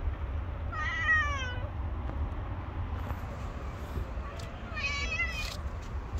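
Cat meowing twice: a drawn-out meow falling in pitch about a second in, and a shorter one about five seconds in, over a steady low rumble.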